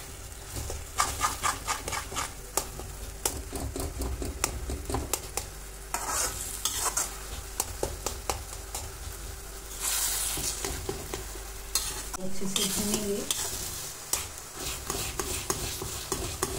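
A metal spatula scraping and tapping against a kadhai while mashed roasted eggplant and masala are stirred in oil, which keeps sizzling and swells louder three times.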